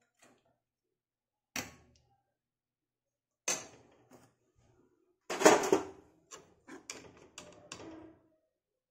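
Stainless-steel kitchen utensils knocking and clinking: two single knocks, then a louder clatter about five seconds in, followed by a run of quicker clinks.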